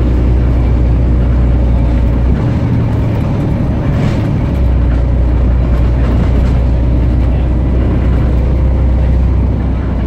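Volvo B7TL double-decker bus's diesel engine droning as the bus drives, heard from inside the lower-deck saloon. The low engine note changes about two and a half seconds in and settles back about two seconds later.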